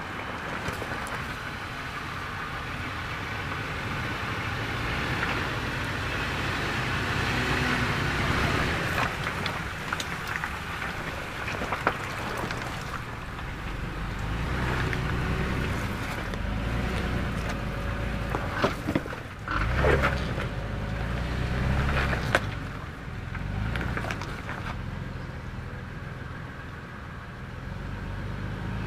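Toyota 4Runner running at low speed along a rocky off-road trail, with a steady low engine rumble and several sharp knocks.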